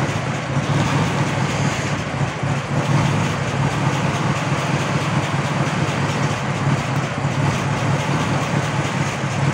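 Old car engine idling steadily while it warms up after sitting unused, a steady low running note with no change in speed.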